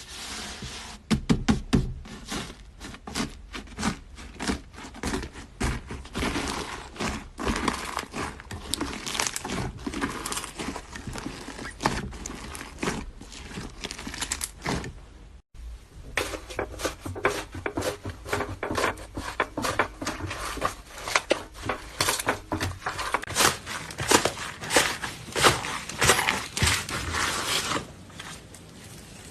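Iceberg slime being handled, its hardened top crust cracking in a dense run of quick crunchy crackles, with a short break about halfway through.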